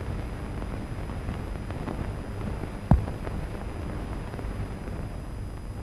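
Steady hiss and low hum of an old film soundtrack, with one sharp click just under three seconds in.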